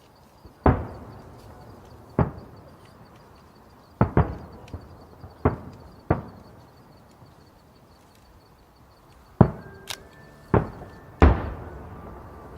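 Fireworks shells bursting overhead: about nine sharp booms at irregular intervals, each followed by a rolling echo.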